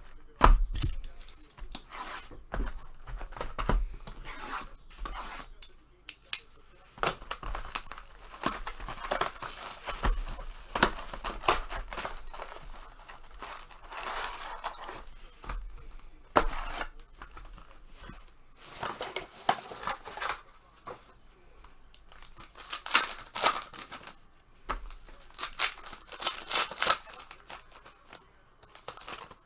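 Trading-card packs and their plastic wrapping being torn open and crinkled by hand, in irregular ripping and crackling strokes that are loudest near the end.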